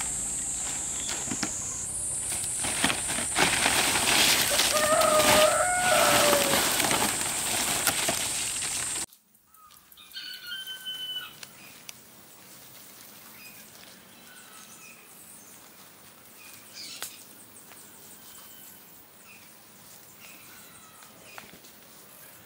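Fresh palm fronds rustling loudly as they are handled and laid out, over a steady high-pitched drone, with a rooster crowing once about five seconds in. Everything cuts off suddenly about nine seconds in, leaving quiet outdoor ambience with a few short bird chirps.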